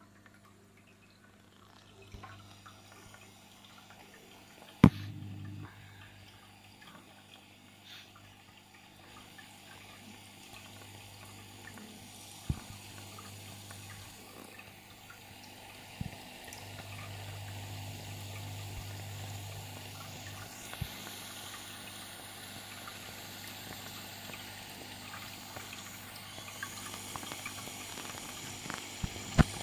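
Deltec MCE 600 hang-on protein skimmer running: rushing, bubbling water in the foaming reaction chamber over a steady low hum from its pump. The water sound grows louder about halfway through, and a sharp knock about five seconds in is the loudest thing, with a few fainter clicks later.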